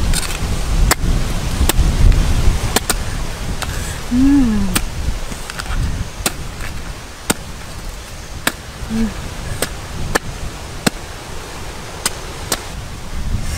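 Large knife chopping into palm fruits on a wooden block, sharp strikes about once a second.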